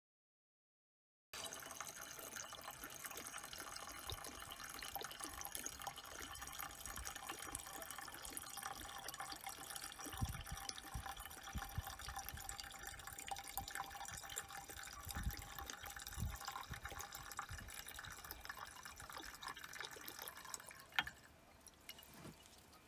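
Vodka pouring in a thin steady stream from a bottle into a glass jar of crushed pomegranate seeds, starting about a second in and stopping near the end. A couple of light knocks follow.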